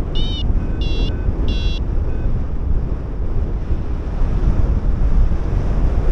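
Paragliding variometer app on a phone giving short climb beeps, about two a second, in the first two seconds and then falling silent: the pilot is in a patch of weak lift. Loud wind rush on the microphone in flight runs underneath.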